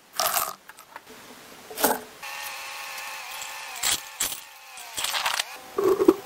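Several sharp clinks and knocks, like tools or metal being handled, and from about two seconds in a steady buzzing drone.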